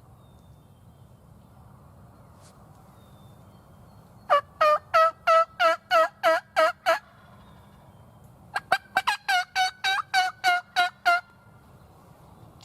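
Two runs of loud turkey yelps, evenly spaced at about three a second: about eight yelps starting about four seconds in, then after a short pause a longer run of about a dozen.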